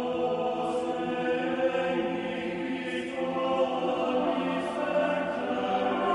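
Background music of slow, sustained, choir-like chords, with the chord changing about three seconds in.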